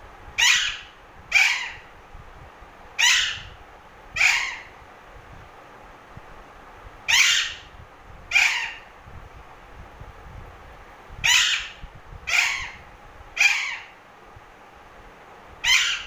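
Alexandrine parakeet squawking: ten short, harsh calls, mostly in pairs or threes about a second apart, with gaps of a few seconds between the groups.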